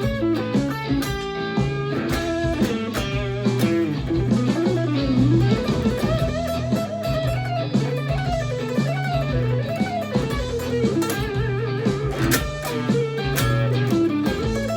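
Electric guitar playing a blues lead over a backing with steady low bass notes. The lead has wide vibrato and string bends, wavering through the middle of the passage.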